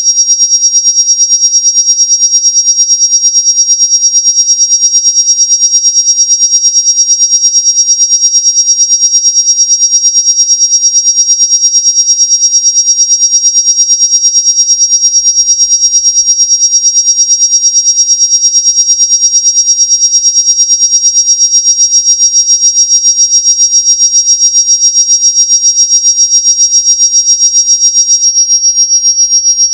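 Loud, steady, shrill electronic tone with several fainter tones stacked around it, pulsing evenly in loudness. A faint low hum joins about halfway through.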